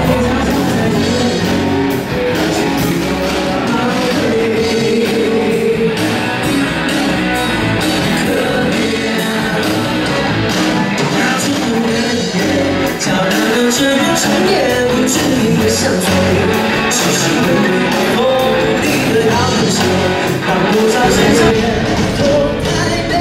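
Music: a song with a singing voice over a steady drum beat.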